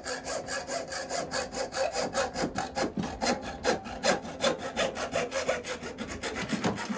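Hacksaw cutting into a plastic shower sump housing, with quick, even back-and-forth rasping strokes.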